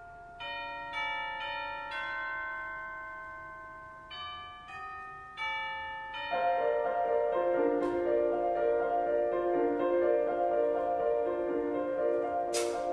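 Instrumental music with bell chimes: single bell notes struck one after another, each ringing on. From about six seconds in, a denser keyboard passage of quickly repeated notes takes over. A short burst of hiss comes near the end.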